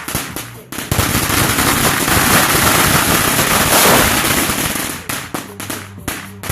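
Fireworks crackling: a dense run of rapid bangs that starts about a second in and lasts about four seconds, then a few separate cracks near the end.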